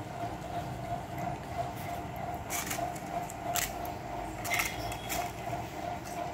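Dog crunching crisp gupchup (pani puri shells), a few sharp crunches about a second apart in the second half, over a steady pulsing mechanical hum.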